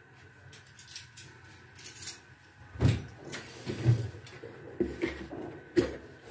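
Kitchen handling noises: about half a dozen sharp knocks and clinks, the loudest about three and four seconds in and again near the end.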